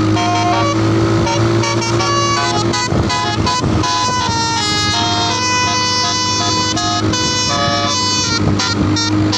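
Bus telolet basuri horn playing a rapid melody: a set of horn trumpets sounding short notes that step quickly from pitch to pitch, held on continuously, over a steady low hum.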